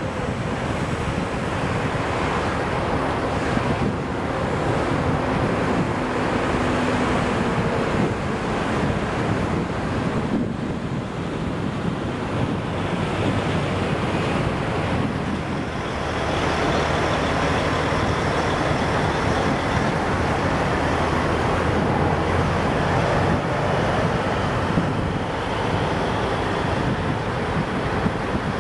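Wind buffeting the microphone over a steady low vehicle drone.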